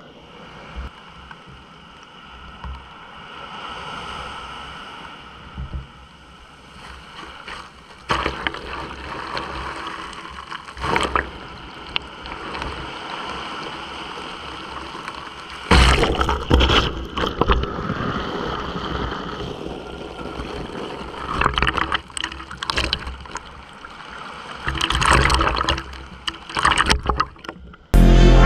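Sea water sloshing and splashing in irregular surges.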